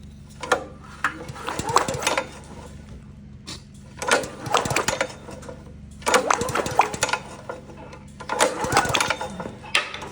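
Small engine of a gas-powered air compressor turned over repeatedly with its spark plug removed, clattering in bursts about every two seconds over a steady low hum.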